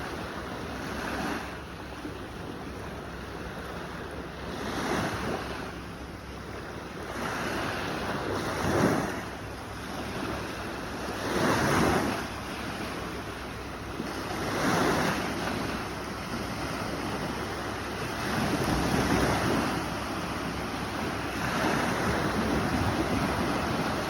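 Sea waves washing onto a shore, each one swelling to a louder surge and falling back, about every three to four seconds.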